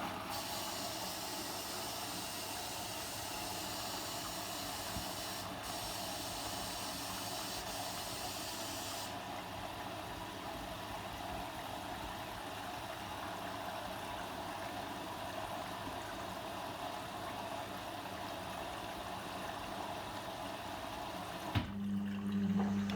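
Logik L712WM23 washing machine filling: mains water hissing in through the inlet valve, starting abruptly. Near the end a click and a steady low hum start up.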